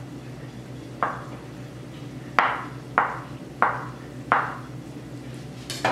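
Chef's knife chopping through boiled potato onto a plastic cutting board: five sharp knocks, spaced irregularly over about three seconds, the first one softer, as the potato is diced small.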